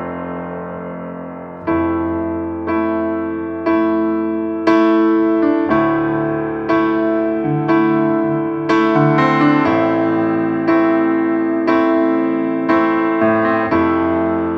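Background music on piano or electric piano: chords struck about once a second, each fading before the next.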